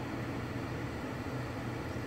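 Steady low hum with an even hiss over it: constant room background noise, unchanging throughout.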